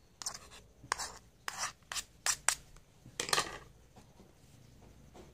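Chopped green and red chili peppers being scraped and dropped onto a bowl of sliced onions, tomatoes and mango: a quick run of short scraping, rustling sounds, the longest just after three seconds in.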